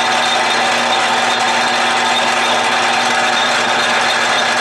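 Atlas/Craftsman 12-inch metal lathe running at a steady speed, its spindle spinning a gear cutter. The sound is a loud, even mechanical drone with a steady hum, heard as the work is raised to touch off the cutter on masking tape over the aluminum gear blank.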